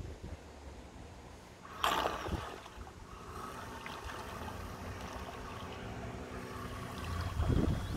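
Wind buffeting the microphone, with a loud rush about two seconds in. From about three seconds in, a steady hum from the radio-controlled model tug's drive motor.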